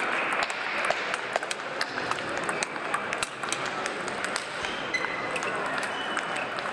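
Table tennis balls clicking irregularly off bats and tables from several matches at once, over a steady hum of hall noise and voices.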